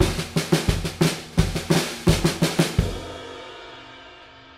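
Drum kit playing a fast fill of snare and bass drum hits with cymbals, ending about three seconds in on a final crash that rings on and slowly fades.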